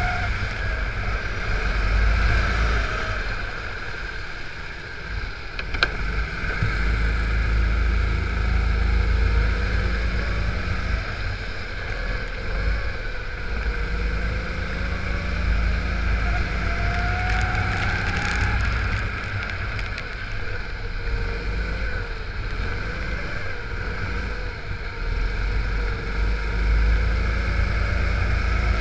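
Rental kart engine heard from an onboard camera at racing speed, its revs rising and falling repeatedly as it accelerates and brakes through the corners. A single sharp click about six seconds in.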